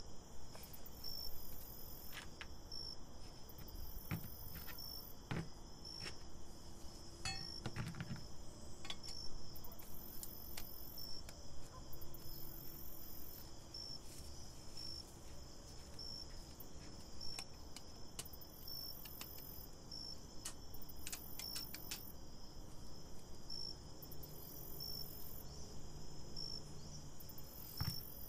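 A cricket chirping at an even, steady pace, with scattered light clicks from the metal parts of a food press being handled.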